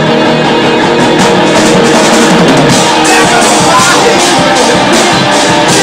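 Live rock band playing loud: electric guitars and bass over a drum kit, with cymbals struck on a steady beat.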